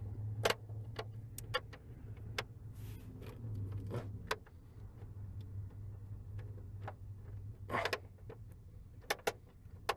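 Scattered clicks and light knocks of a screwdriver and plastic trim being worked on a car's steering column covers, over a steady low hum.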